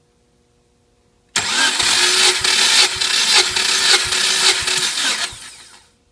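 Subaru EJ205 flat-four engine cranked over by its starter motor for a compression test. It starts abruptly about a second in, with a steady starter whine and regular pulses as each cylinder comes up on compression, and runs down and stops after about four seconds.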